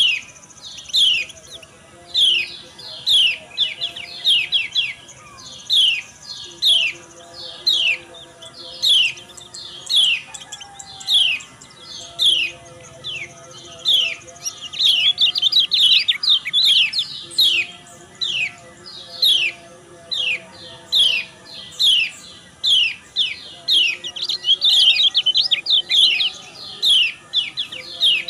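Kecial kuning (white-eye) calls: sharp falling 'ciak' chips about once or twice a second, breaking twice into quicker runs of ngejos song, around the middle and near the end. A female-call lure meant to stir male birds into singing.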